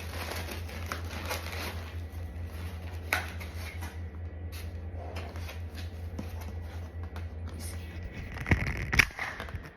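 Takeout food packaging being handled: rustling and crinkling with light clicks of plastic, then two sharp knocks near the end. A steady low hum runs underneath and stops about eight seconds in.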